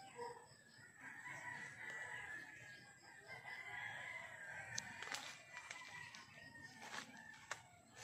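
A rooster crowing: one long drawn-out call in the first half, followed by a few sharp clicks in the second half.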